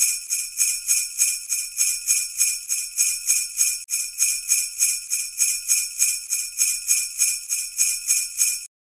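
Sleigh bells jingling in a steady, even rhythm of about four shakes a second, then cutting off suddenly near the end.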